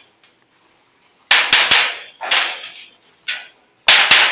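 Hammer blows on a sheet-metal piece, working its folded edge down: a few separate strikes from about a second in, then a quick run of strikes near the end, each with a short metallic ring.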